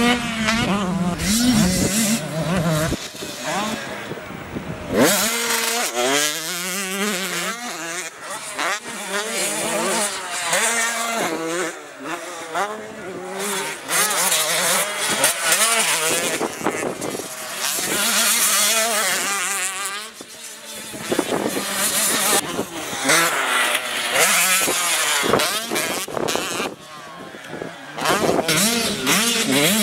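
85cc two-stroke motocross bikes revving hard, the engine pitch rising and falling repeatedly as they accelerate and back off.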